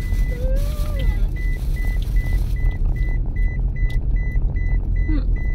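A car driving, heard from inside the cabin: a steady low rumble of road and tyre noise. A short high beep repeats about two and a half times a second throughout.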